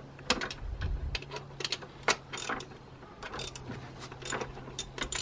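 Hand socket ratchet clicking in irregular runs while undoing the 10 mm bolts that hold the throttle body to the intake manifold.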